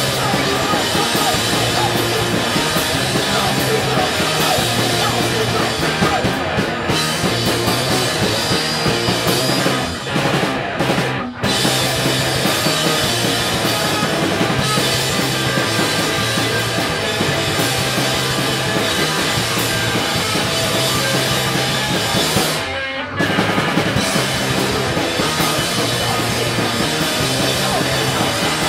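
Rock band playing live: two electric guitars over a drum kit, loud and dense. The sound briefly thins twice, about ten seconds in and again about twenty-three seconds in, before the full band comes back.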